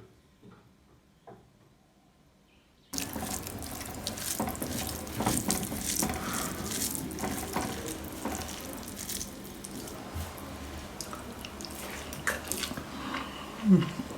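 Water running from a tap into a sink, with small clatters, starting abruptly about three seconds in. A brief rising squeak near the end is the loudest moment.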